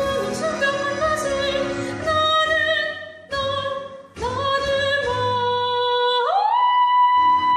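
A woman's operatic soprano voice singing a melody with vibrato, breaking off briefly twice midway. It then slides up near the end into a long held high note.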